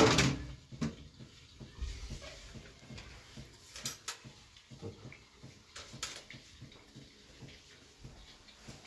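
A sharp clatter with a short ringing tail as a plastic colander is set onto a metal serving tray, followed by faint, scattered knocks and clicks of kitchenware being handled and set down.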